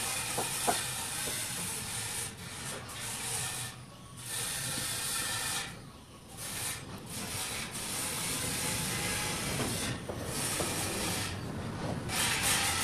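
Steady hiss, dropping away briefly several times.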